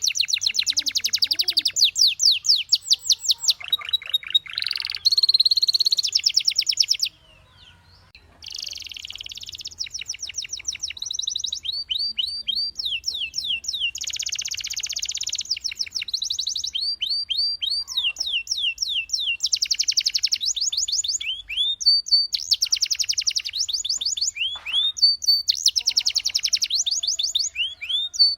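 Canary singing a long, loud song of fast trills: rapid runs of repeated high notes and quick rising and falling sweeps, with a short break about seven seconds in.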